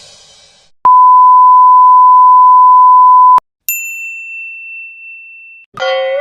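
Meme sound effects: a loud, steady censor-style beep held for about two and a half seconds and cut off sharply, then a thin high ringing tone that holds for about two seconds. Near the end a new pitched sound effect begins.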